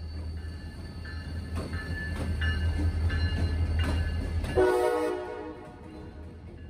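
A CSX diesel freight locomotive passes close by, its engine rumble growing louder and then dropping away suddenly as it goes past about four and a half seconds in. A brief loud pitched tone rings out at that moment, and the tank cars rolling behind it make faint rhythmic wheel clicks.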